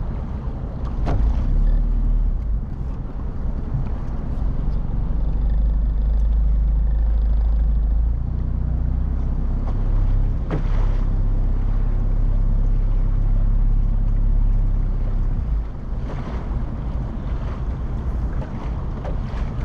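Motorboat engine running underway with a steady low rumble and hull and water noise. It grows louder about a second and a half in and eases off about three quarters of the way through.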